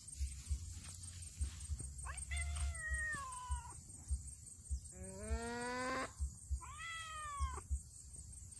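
Domestic cat meowing three times. The first meow is drawn out and falls in pitch, the second rises, and the third rises and then falls.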